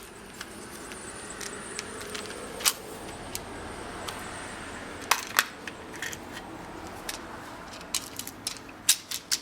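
Small hard parts clicking and rattling while someone rummages through a small accessory case for an Allen key, with sharp clicks scattered through and several in quick succession near the end.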